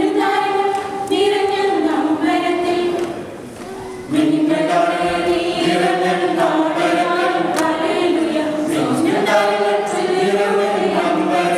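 Mixed choir singing unaccompanied into microphones. Higher voices carry the tune at first. About four seconds in, lower voices join and the singing grows fuller and louder.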